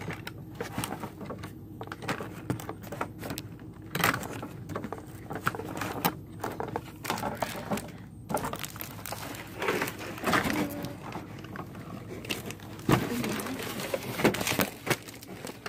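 Cardboard box and paper packing material being handled: irregular rustling and crinkling with light knocks and scrapes.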